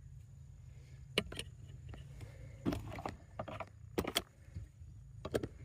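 Hand tools being handled: sharp metal clicks and knocks scattered irregularly, several of them in quick pairs, over a steady low hum.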